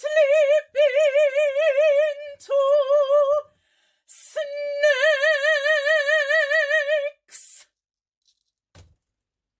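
A woman singing a cappella, holding a few long high notes with a wide, even vibrato. The last and longest note lasts nearly three seconds.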